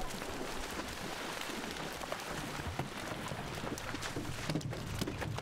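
Many Asian carp leaping from the water and splashing back down, a dense patter of splashes set off by the electrofishing current, over the low steady hum of the boat's motor.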